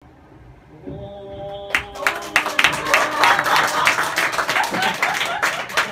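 Short entrance music starts about a second in. An audience then breaks into applause and clapping over it, louder than the music, greeting the performers as they come on stage.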